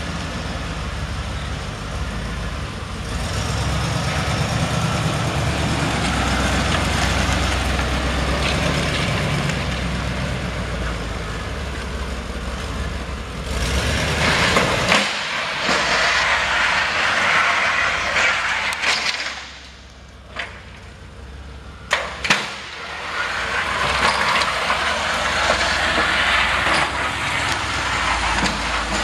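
1992 GMC Sierra 1500's 5.7-litre V8 running as the pickup drives slowly across a concrete floor. The sound drops away for a couple of seconds about two-thirds of the way through, and a few sharp clicks follow.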